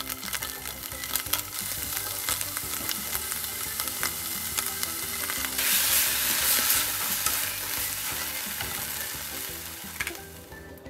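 Food sizzling in a frying pan while being stirred, with clicks of a utensil against the pan. The sizzle swells loudest about halfway through and cuts off near the end. Soft background music plays underneath.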